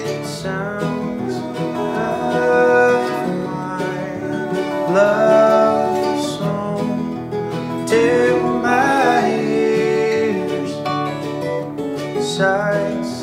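Acoustic folk music with no singing: a picked mandolin and an acoustic guitar play a passage together, with a few gliding notes about five and nine seconds in.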